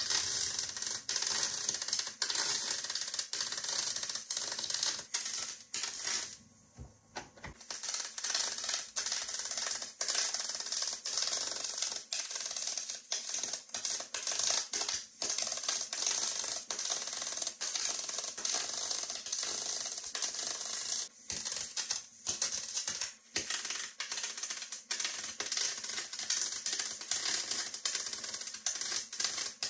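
Spool-gun MIG welding on 16-gauge aluminum sheet: the arc crackles and hisses steadily, stopping for about a second some six seconds in and briefly twice more near the end as the arc is broken and restarted for new beads.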